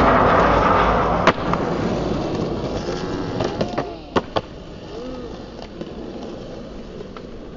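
Skateboard wheels rolling over rough concrete, loud at first and fading away over the first two seconds, with a sharp clack about a second in. After that, quieter ambience with a few scattered clicks.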